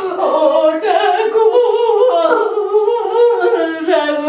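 A woman's high, wordless voice, drawn out and wavering in pitch with no words.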